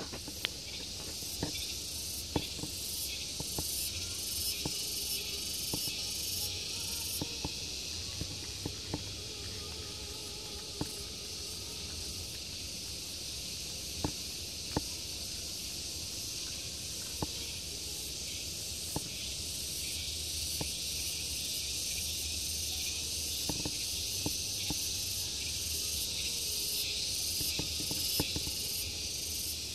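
Insects droning steadily at a high pitch, with a faster pulsing shimmer at the very top, and a dozen or so scattered sharp clicks.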